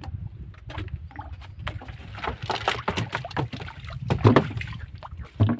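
Irregular knocks and clatter on a wooden outrigger canoe as a fisherman stands on the slatted deck hauling in a handline, with a louder knock about four seconds in.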